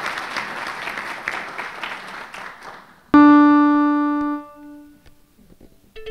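Audience applause that fades away over about three seconds, then a single piano note struck and left to ring for about a second and a half. A violin begins to play right at the end.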